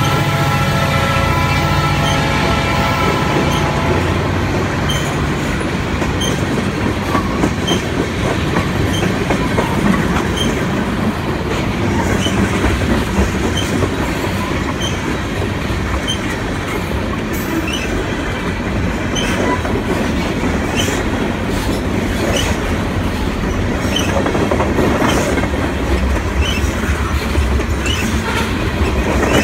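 Loaded freight train of tank cars and covered hoppers rolling past close by, its wheels clicking over the rail joints about once a second over a continuous rumble. A steady drone from the locomotives that have just gone by fades out about three seconds in.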